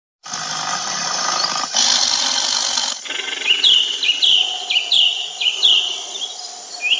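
Natural outdoor ambience: a steady hiss for about three seconds, then short, high chirps repeated roughly twice a second over a fainter hiss.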